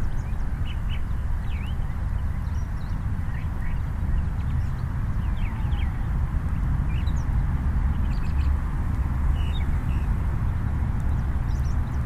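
Steady wind rumble on the microphone, with birds chirping and calling off and on over it.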